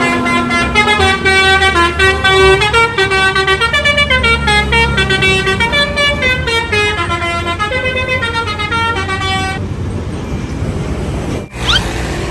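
Telolet bus horn, a multi-tone air horn, playing a quick tune of stepping notes, several pitches at once, which stops about ten seconds in. A steady engine-and-traffic rumble carries on after it.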